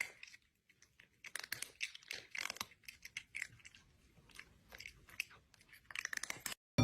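Crunchy chewing: a mouth biting and munching something crisp in quick, irregular crunches.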